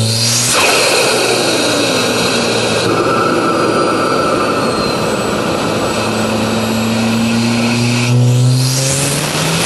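Turbocharged four-cylinder Audi S3 with a big Garrett GT2260S turbo pulling hard under boost, its engine pitch rising with a high turbo whistle over it. When the throttle shuts, about half a second in and again near the end, there is a rushing turbo flutter with a falling tone: compressor surge as the boost has nowhere to vent.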